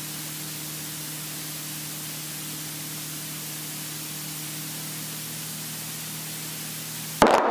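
Steady hiss with a low, even hum: a light aircraft's engine and cabin noise heard through the headset intercom feed. A sudden loud burst of sound cuts in near the end.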